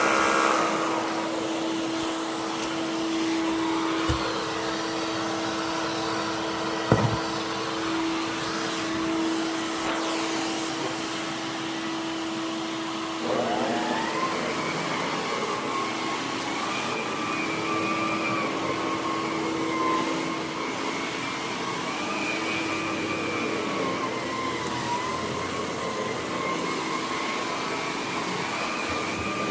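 Electrolux Super J vacuum cleaner running steadily, its motor one the owner calls pretty rough. There are two sharp knocks in the first seven seconds, and about halfway through a wavering whistle joins the motor's hum.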